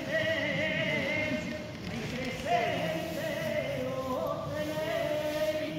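Voices singing slow, long-held notes that waver in pitch, with a short break about two seconds in.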